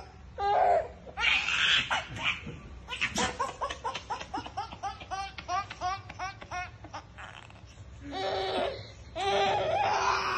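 A baby laughing hard in bursts of belly laughter. In the middle comes a long run of quick, short "ha"s, about four or five a second.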